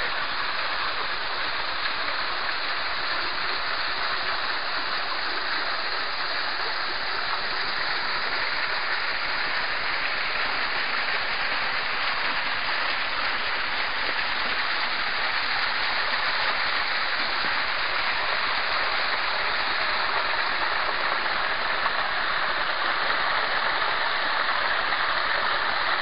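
Small waterfall spilling into a sandstone rock pool and the stream running out of it: a steady rush of splashing water.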